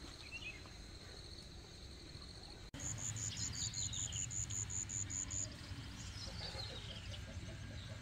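Insects and birds: a steady high insect drone at first, then, about three seconds in, a quick run of high chirps, about four or five a second, for a couple of seconds, with two falling bird trills.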